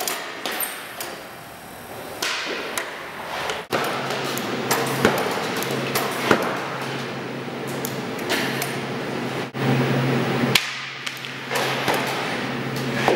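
Goaltender's skate blades scraping and swishing across synthetic ice panels, with many sharp knocks and clacks of pucks and gear. From a few seconds in, a steady low hum runs underneath.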